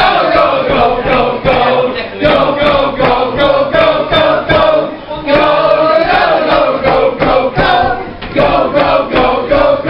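A small group of men and women singing together unaccompanied, as an informal choir.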